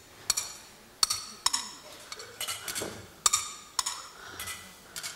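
Matkot paddles striking a ball back and forth: sharp cracks at about two a second in an uneven rhythm, each with a brief high ringing tail.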